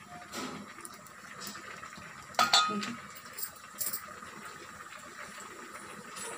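Cooking oil poured into a steel pot on a gas stove burner, heard as a faint steady hiss with a few light metal clinks against the pot, the loudest about two and a half seconds in.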